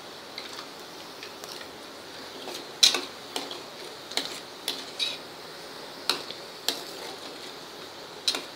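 A steel slotted spoon clinks and scrapes irregularly against a perforated steel frying basket as cashew pieces are stirred in oil on low heat, over a faint frying sizzle. The clinks grow sharper and more frequent from about three seconds in.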